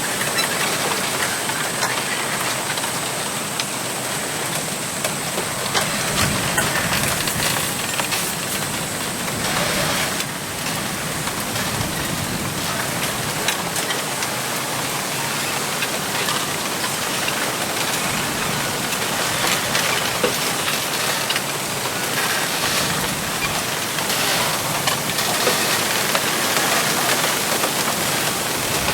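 Wind blowing through a bamboo grove: a steady rustle of leaves and stalks rubbing together, with many small ticks and gentle swells.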